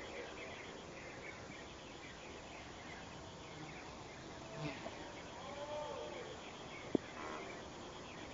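Outdoor garden ambience: a steady high insect trill with small birds chirping and calling, and one sharp click near the end.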